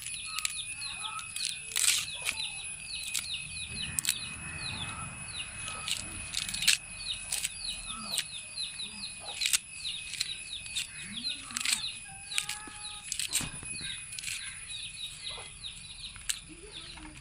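Fresh leaves being torn by hand over a plastic dish: irregular crisp rips and rustles. Behind them runs a steady chorus of rapid high chirps, several a second.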